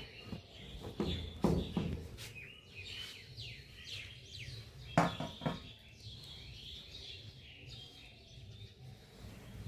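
Small birds chirping, with many short downward-sliding calls repeating throughout. A few sharp knocks break in, the loudest about five seconds in.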